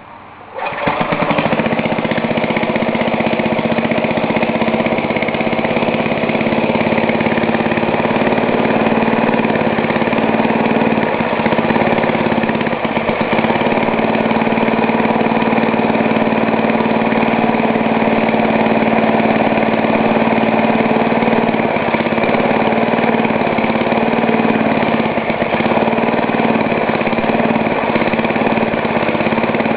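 Ariens snowblower's four-stroke engine catching about half a second in on a choked cold start, then running steadily at half throttle. A few brief dips in speed come about 11, 13 and 22 seconds in, which the owner puts down to air in the newly replaced fuel line.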